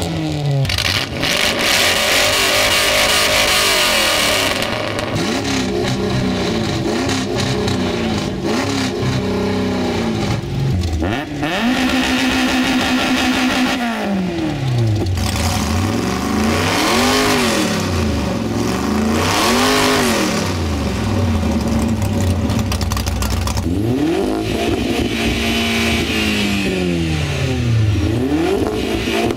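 Several parked cars revved in turn, each engine's pitch climbing and falling with every throttle stab, in long pulls and quicker blips. In order they are an Acura Integra sedan, then a first-generation VW Golf race car, then a lowered fourth-generation VW Jetta near the end.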